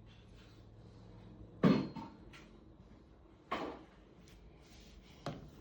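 Three short knocks, the first about a second and a half in and the loudest, the others following about two seconds apart, with a few faint clicks between them.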